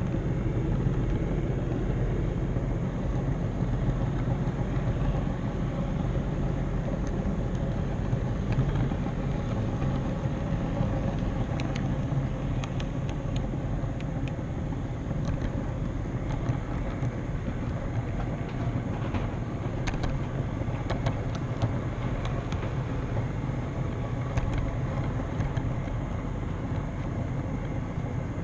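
HO scale model train carrying the camera, rolling along the layout's track: a steady rumble with scattered clicks through the middle stretch.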